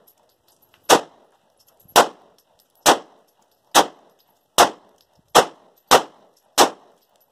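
Pistol fired eight times in a steady string, each shot a sharp crack with a short decay. The shots come about a second apart at first and a little quicker toward the end.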